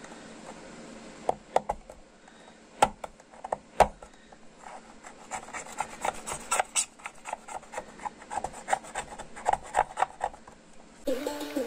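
Small flat chisel blade scraping and chipping at cured epoxy jewelry resin on a hard plastic surface. It starts with a few sharp clicks and then becomes a fast run of short scrapes. The scraping tests the resin's adhesion, which is holding at least partly. Music comes in near the end.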